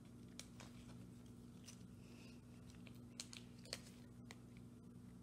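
Faint clicks and crinkles of plastic card sleeves being handled as a photocard is slipped into a binder page, a handful of small sharp ticks scattered over a low steady hum.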